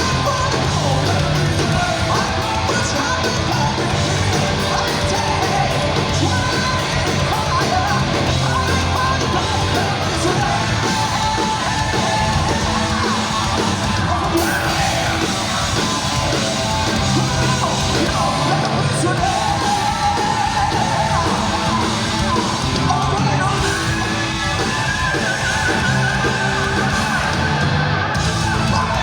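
Heavy metal band playing live: distorted electric guitars, bass and drums under a singer's high, yelled vocals, with a long held high note near the end.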